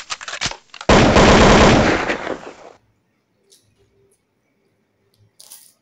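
A few crisp crunches, then a loud burst of rapid machine-gun-like rattling lasting about two seconds that fades out. The rattle has a different sound quality from the rest of the track, typical of an edited-in gunfire sound effect.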